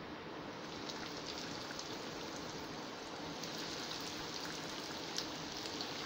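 Potato-and-vegetable nests deep-frying in hot oil in a pan: steady sizzling and bubbling with small scattered crackles as a fresh batch cooks.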